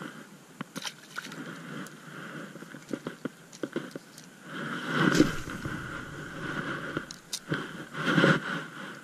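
Scraping and rustling handling noise close to the microphone from a spinning rod and reel being taken up and worked by hand, with scattered sharp clicks and two louder rustling surges about five and eight seconds in.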